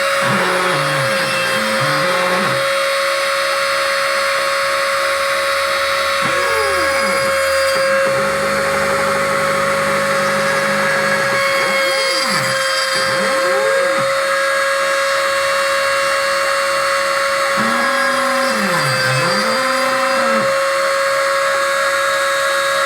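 CNC milling machine at work: a steady spindle whine over cutting noise, with the axis motors' whine dipping in pitch and rising again each time an axis slows, reverses and speeds up, twice in deep dips near the end.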